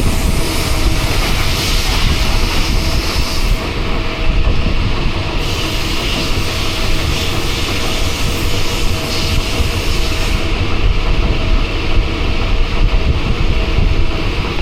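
Steady rumble and rushing noise of a moving vehicle in motion, without a break.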